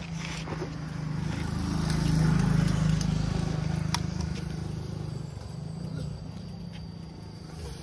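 A motor vehicle's engine running steadily, growing louder about two to three seconds in and then fading, as a vehicle goes by on the road.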